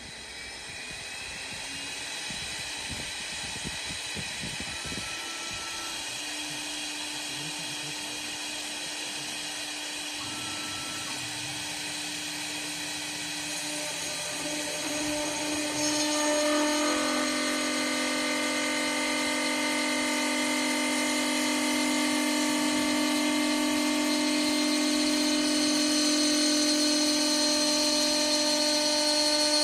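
CNC wood lathe with its spindle running, a drill-like machine whine made of several steady tones that step to new pitches about two-thirds of the way through and grows steadily louder.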